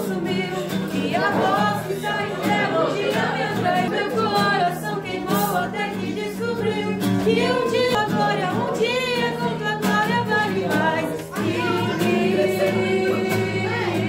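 A girl singing a song to an acoustic guitar that a boy plays along with her.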